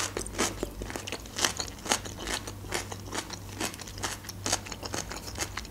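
Close-mic chewing of a mouthful of cucumber: irregular crisp crunches and wet mouth clicks.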